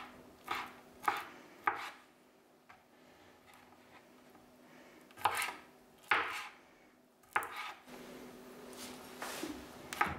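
Chef's knife slicing sticky glacé cherries on a plastic cutting board: sharp knocks of the blade meeting the board, three in quick succession at the start and a few more spread out later, with a softer steady stretch near the end.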